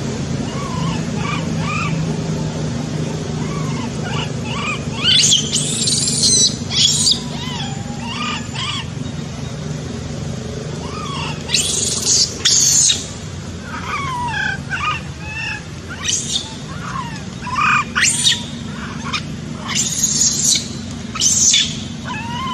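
Baby macaque crying with repeated high-pitched squeals and screams in short bursts every second or two, over a steady low background rumble.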